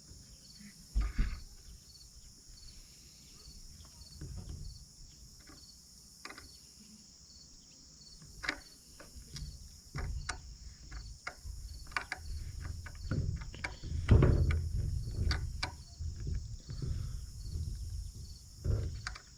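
Crickets chirping steadily in a fast, even pulse, under scattered small clicks, taps and low knocks from hand work on the rifle stock. The knocks are loudest about two-thirds of the way through.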